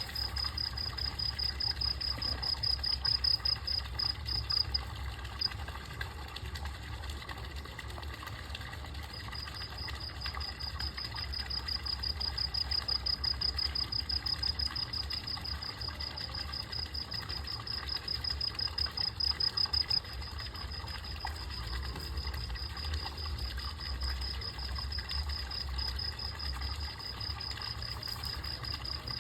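An insect trilling: a high-pitched, rapidly pulsing chirp that breaks off about five seconds in and starts again some four seconds later. A steady low rumble runs underneath.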